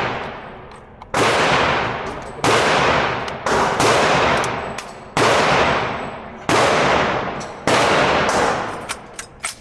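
Six single gunshots at a shooting range, a little over a second apart, each with a long echoing tail, followed by a few lighter sharp clicks near the end.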